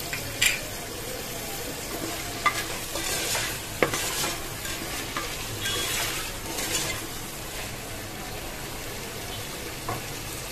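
Chopped vegetables (cauliflower, carrot, French beans, potato) sizzling with spices in hot oil over a high flame. They are stirred and scraped around the pan, with a few sharp clicks of the spatula against the pan.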